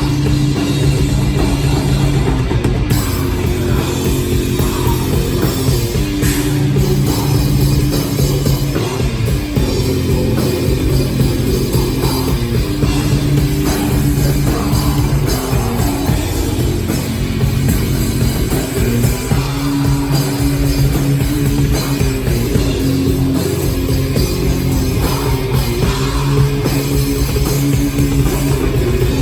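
Rock band playing live at a loud, steady level, with drum kit and electric guitar.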